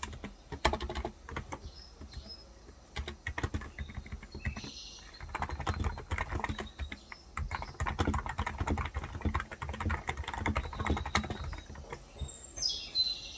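Typing on a Cox Endeavor electro-capacitive (Topre-style) 35 g tenkeyless keyboard, a continuous irregular run of keystrokes. Birds chirp briefly about four seconds in and again more strongly near the end.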